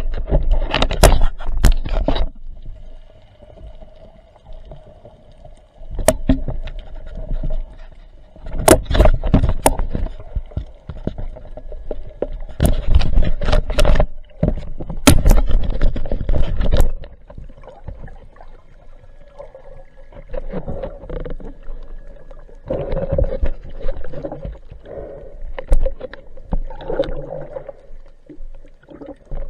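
Muffled underwater sound from a spearfisher's diving camera: water sloshing and splashing, with loud bursts every few seconds between quieter stretches.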